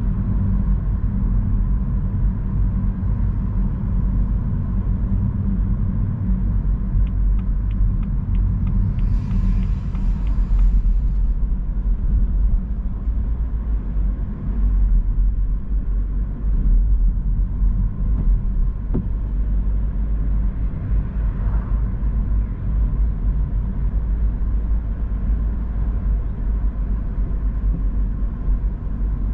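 Car driving on a rain-wet road: a steady low rumble of engine and tyre noise, with a brief hiss about nine to eleven seconds in.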